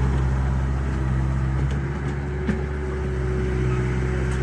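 Radio-controlled model construction machines running: a steady low engine-like hum, joined about two seconds in by a steady whine, with a few small clicks.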